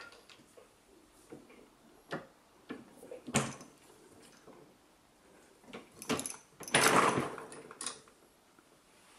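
Metal clicks and clunks of a single-stage reloading press and collet bullet puller being worked to pull a bullet from a cartridge: the cartridge fitted into the shell holder, the press lever and ram moved, the collet handle turned. A sharp knock comes about three and a half seconds in and a longer scraping clatter around seven seconds in.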